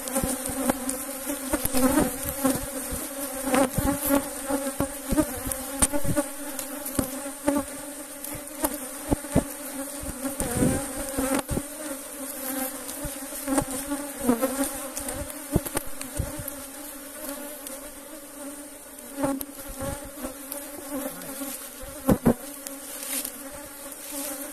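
A mass of honeybees buzzing around an opened hive, a steady, even hum. Scattered knocks and clicks from the hive parts being handled sound over it.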